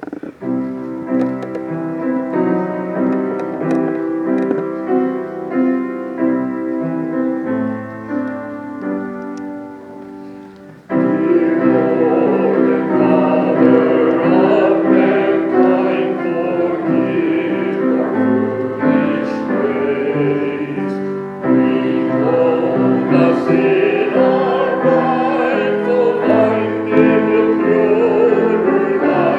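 Sacred music on a keyboard instrument: held chords play alone at first, then about 11 seconds in a group of voices comes in singing a hymn over the accompaniment, clearly louder.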